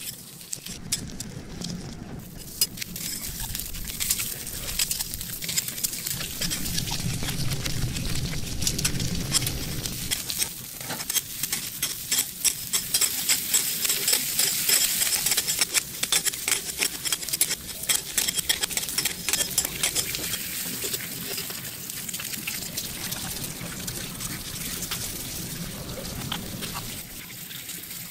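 Eggs frying in oil on a hot flat-top griddle: a dense, steady sizzle full of small crackles and pops, loudest around the middle.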